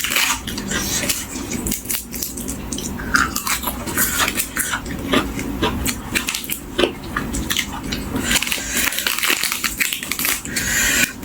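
Close-up eating sounds: a person biting and chewing crisp raw vegetables and spicy salad, many short crunches and wet mouth noises, with light clinks of dishes or cutlery.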